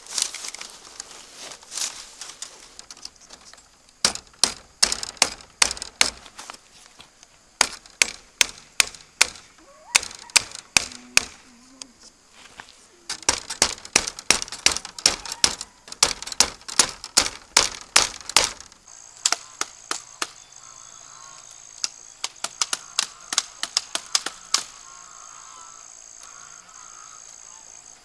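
Runs of sharp knocks from chopping at bamboo, two to three strokes a second, the loudest sound, thinning out after about two thirds of the way. From then on a steady high insect drone runs, with geese honking.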